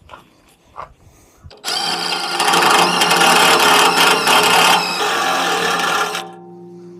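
Cordless drill running a step drill bit through the steel side of a tractor loader bucket, enlarging a pilot hole. It is loud and steady, starting about a second and a half in and stopping about a second before the end.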